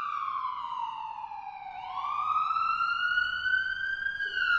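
Emergency vehicle siren in a slow wail: the pitch slides down over about two seconds, climbs back up over the next two, and starts falling again near the end.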